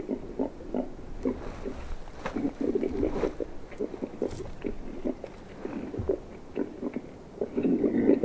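Hog grunting: a run of short, low, rough grunts with scattered clicks, as from boars or a boar call.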